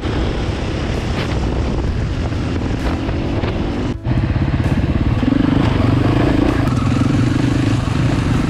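Husqvarna 701 single-cylinder enduro motorcycle engine running under way, heard from the bike with wind and tyre noise. About four seconds in the sound cuts to a steadier, pulsing engine note.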